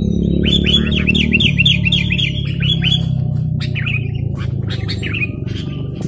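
Sooty-headed bulbul (kutilang) calling: a quick run of about ten sharp, downward-hooked notes, then a few scattered notes, over steady low background music.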